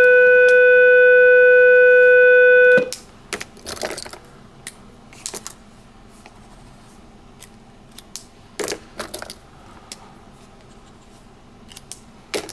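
A loud, steady pitched tone with even overtones that cuts off suddenly about three seconds in. After it come light, scattered scratches and clicks of a fountain pen being tried on paper and handled.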